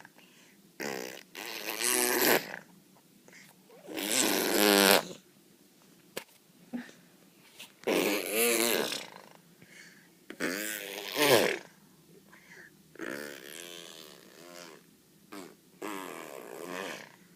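A little girl blowing raspberries, buzzing her lips in about six separate blasts of roughly a second each, with short pauses between.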